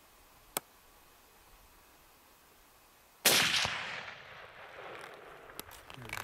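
A single rifle shot about three seconds in, loud and sudden, its report echoing and fading away over the next two seconds.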